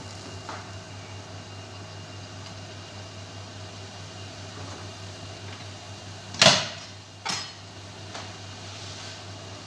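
Steady hiss with a low hum from a lit gas stove burner under a small pot of boiling spices. A sharp knock comes about six and a half seconds in, and a softer one under a second later.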